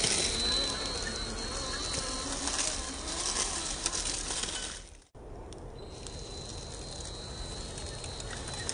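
A 1/10 scale RC rock crawler with a 2200kv brushless motor crawling slowly over rock and dry pine needles: a motor whine that rises and falls with the throttle, a steady thin high whine, and the crackle and scrape of tyres on the ground. The sound drops out briefly about five seconds in.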